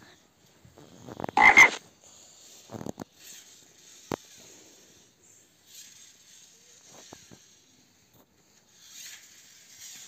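Frog croaking: one loud croak about a second and a half in, then a few short, quieter calls.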